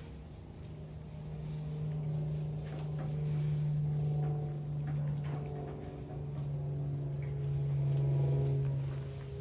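Background music: a steady low drone under slow, sustained notes that change pitch every second or so.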